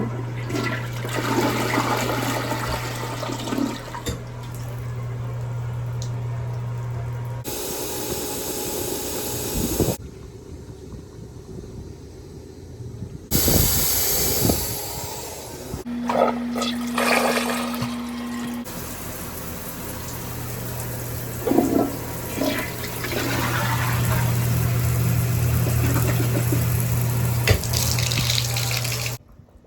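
Toilet flushing and water rushing down the drain, in several abruptly cut stretches, with a steady low hum under the longer ones.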